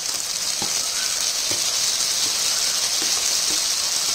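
Chopped tomatoes going into hot oil and onions in a kadhai, setting off a steady frying sizzle that swells as they land, with a few light clicks as pieces drop.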